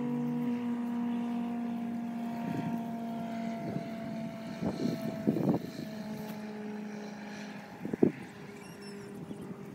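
A steady engine drone with several pitched tones, slowly falling in pitch. Over it, a long-handled digging tool chops into soil around lemongrass clumps: a few thuds about halfway through and the loudest one about eight seconds in.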